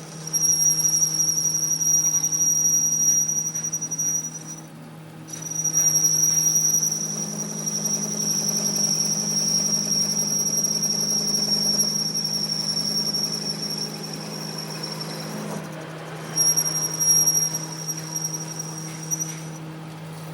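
High-pitched squeal of a cutting tool on a turning metal workpiece, stopping and starting again three times, over the steady hum of the machine.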